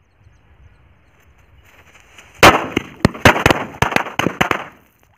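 A 100-wala string of firecrackers bursting in shallow water. A hiss grows for about two seconds, then a rapid run of about ten sharp bangs follows over about two seconds, the first one the loudest.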